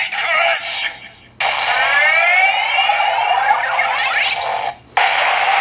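Electronic sound effects from a DX Sclash Driver toy belt's built-in speaker. A brief voice-like call comes first, then a sweeping, rising electronic effect lasts about three seconds. It cuts off briefly near the end and a steady hissing effect follows.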